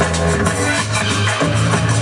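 Electronic music with a steady beat and a deep bass line.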